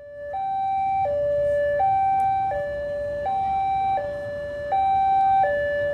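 Two-tone electronic warning alarm, alternating evenly between a low and a high note about every three quarters of a second, over a low background rumble. It fades in over the first second.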